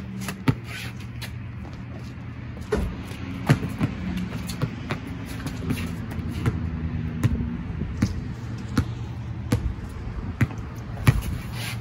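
Basketball bouncing on a concrete driveway with irregular sharp thuds, along with sneakers scuffing during one-on-one play, over a steady low hum.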